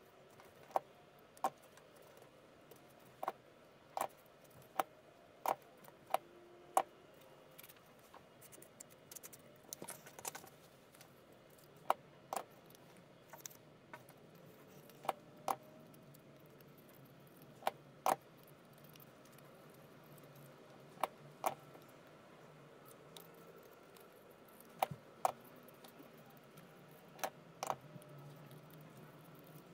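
Sharp little clicks and taps at irregular intervals, about one every second or two, from hands handling and pressing yellow craft-foam petals on a table, over a faint steady low hum.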